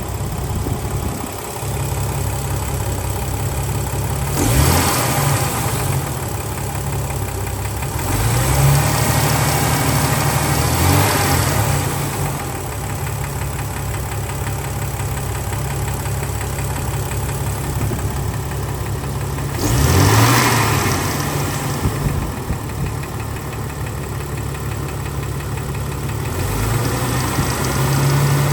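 2000 Jeep Cherokee 4.0 inline-six idling warm with a knocking piston slap, revved briefly several times. The slap persisting after about 20 minutes of running, when it normally goes away once warm.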